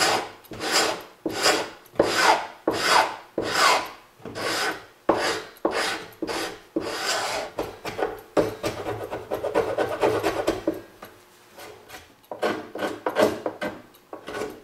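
Steel wood chisel, used as a scraper, rasping old dried glue off a wooden pool table rail in repeated strokes of about one and a half a second. About three-quarters through there is a short pause, then quicker, shorter strokes.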